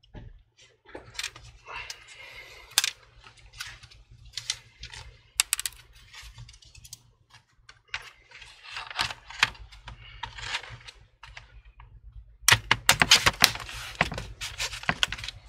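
Plastic bottom cover of an Acer Predator Helios 300 laptop being pressed back onto the chassis by hand: scattered clicks and snaps as its clips catch, with scraping and handling of the panel, and a dense run of louder clicks near the end as the cover is pressed down firmly.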